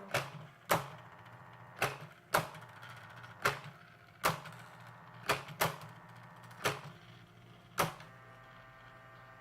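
CasioWriter CW-10 electronic typewriter typing by itself in demo mode: about ten sharp character strikes at uneven spacing, stopping about eight seconds in, over a steady hum.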